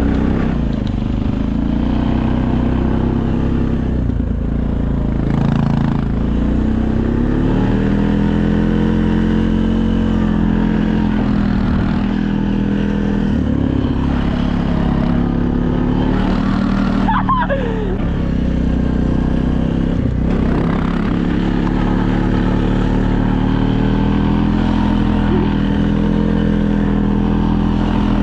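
Small vehicle engine running under load while towing, its pitch slowly rising and falling with throttle changes. A brief falling squeal comes about two-thirds of the way through.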